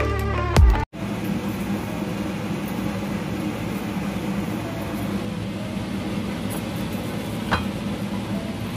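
Electronic background music ends abruptly about a second in. After that comes a steady hum and hiss of room background noise, with a single light click near the end.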